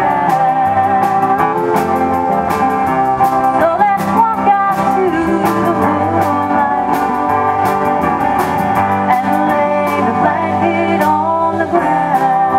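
Live country band playing an instrumental passage: strummed acoustic guitars over a steady drum beat, with an electric lead guitar.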